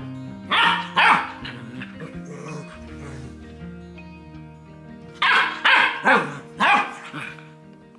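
Golden retriever puppy barking in short, loud yips: two close together near the start, then four more in quick succession past the middle, over steady background music.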